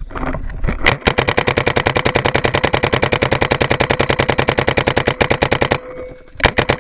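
Paintball marker firing a long burst of rapid, evenly spaced shots, stopping briefly near the end and then firing again.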